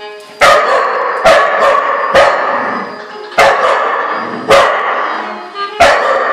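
A dog barks angrily about seven times, in sharp single barks spaced roughly a second apart, at a singing reindeer plush toy whose tune plays more faintly underneath.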